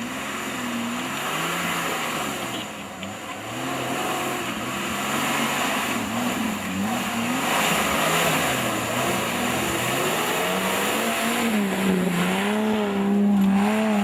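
A 4x4 off-road vehicle's engine revving up and down again and again as it works through the course, getting louder and holding a higher steady pitch in the last few seconds.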